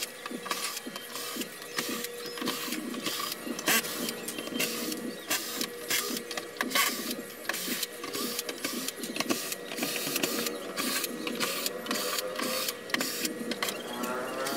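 Cordless drill/driver backing out the screws of a flat-screen TV's plastic back cover: the motor whirs in runs, with many short sharp clicks.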